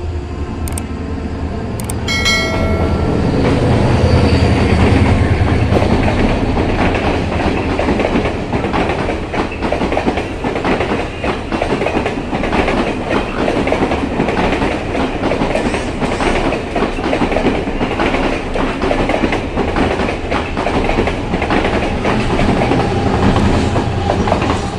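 Sri Lanka Railways Class S11 diesel multiple unit running through the station: a short horn note about two seconds in, then a heavy diesel rumble and the steady clickety-clack of wheels over rail joints.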